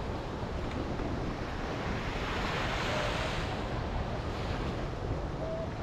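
Small sea waves breaking and washing up on a sandy beach, one surge of surf swelling about halfway through, with wind rumbling on the microphone.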